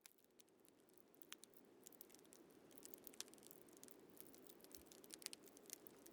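Faint campfire crackling, fading in over the first few seconds: a low steady hiss of burning with irregular sharp pops and snaps.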